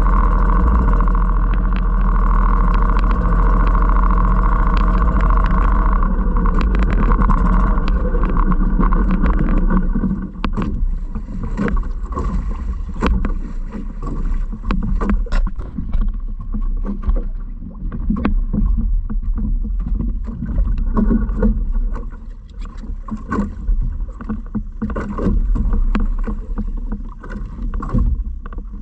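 A small boat's motor runs steadily, then fades and stops about ten seconds in. After that come irregular knocks and clatter from the boat on the water.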